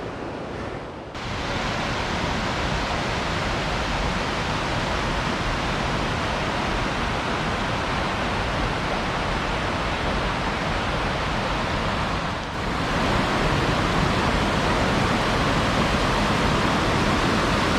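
Battle Creek's waterfall and creek rushing in strong snowmelt flow, a dense, steady noise of water. It gets louder about a second in, and again after a brief dip past the middle.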